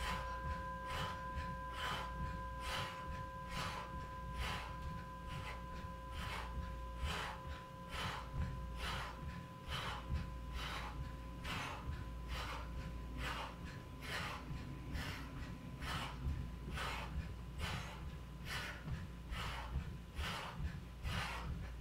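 A woman breathing hard in rhythm while doing jumping jacks, with a short puff of breath about twice a second.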